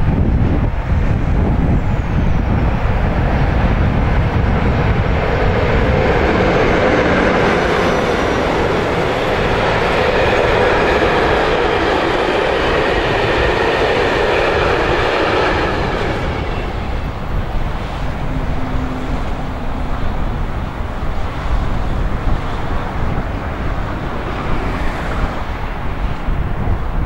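Freight train of tank-container wagons rolling past on the track, its wheel and rail noise swelling to a peak over several seconds and then easing off to a more distant rolling train. A steady low wind rumble on the microphone lies underneath.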